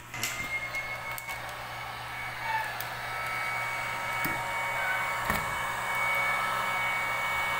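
Hand-held hot-air blower switched on and running steadily with a high whine, shrinking a plastic umbrella seal onto the cap of a water gallon; a few light knocks as the gallon is handled.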